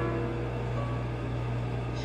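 Steady low hum with faint background music.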